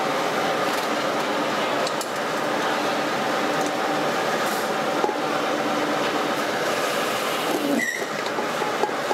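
Steady din of factory machinery running, a continuous mechanical rumble carrying several steady hum tones, with a few light clicks and a brief squeak near the end.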